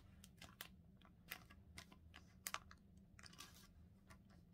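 Faint, irregular clicks and a brief soft rustle from a thin paper plate being handled in the hands.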